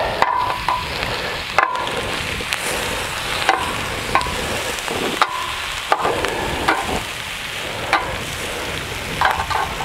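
Bacon, potato slices and steak sizzling on a hot grill plate, with metal tongs clicking against the plate now and then as pieces are turned.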